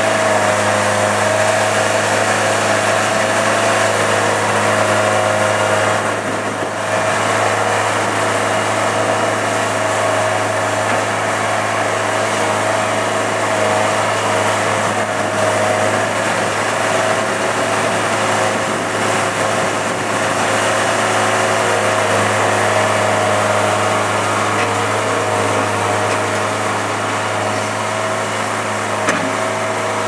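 Bobcat 751 skid steer loader's diesel engine running steadily at working speed while the machine dumps and pushes dirt with its bucket. The sound briefly dips about six seconds in.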